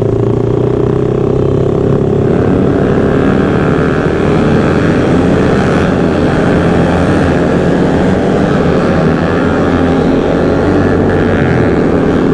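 Motorcycle engines running at a steady high speed: a constant drone that holds its pitch and gets a little brighter about two seconds in.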